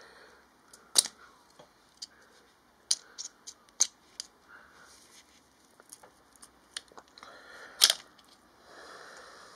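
Metal pick scraping and clicking in a motorcycle engine's exhaust port as the old header gasket is prised out: a scatter of sharp clicks and short scratches, the loudest about a second in and near the end.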